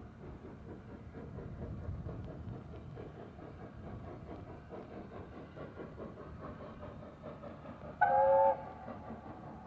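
Distant train running with a steady low rumble and faint rattle, then one short whistle blast of about half a second from the locomotive near the end, loud and at several fixed pitches.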